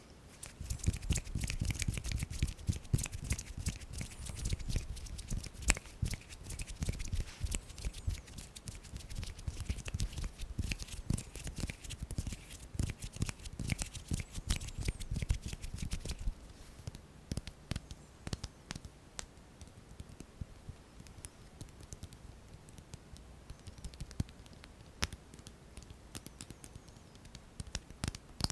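Close-miked ASMR hand sounds: skin rustling and fingers crackling and tapping, a busy run of small clicks for about sixteen seconds, then sparser, quieter clicks.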